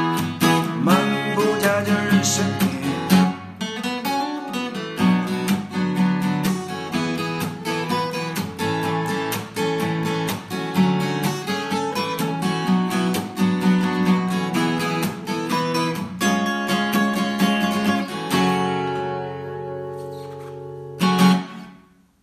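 Acoustic guitar played solo: a passage of rhythmically strummed chords. Near the end a chord is left ringing, then one last strum that dies away.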